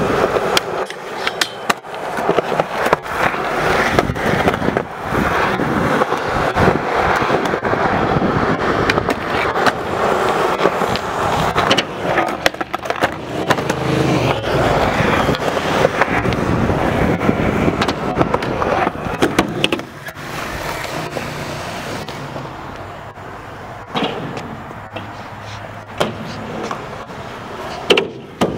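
Skateboard wheels rolling over concrete, with sharp clacks of the board hitting the ground scattered throughout. The rolling gets quieter about two-thirds of the way in, leaving a few separate clacks near the end.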